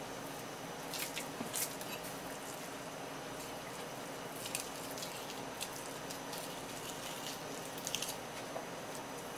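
Kitchen knife cutting along the bones of a red sea bream as it is filleted: a few short, wet, scratchy ticks in small clusters near the start, in the middle and near the end, over a steady room hum.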